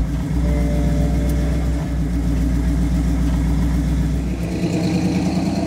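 1974 Ford Bronco's 302 V8, fitted with ceramic headers, running steadily as the truck drives along, with a change in tone about four and a half seconds in.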